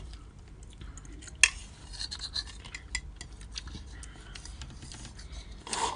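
Eating utensils clinking and tapping against a bowl: scattered light clicks, with one sharper click about a second and a half in.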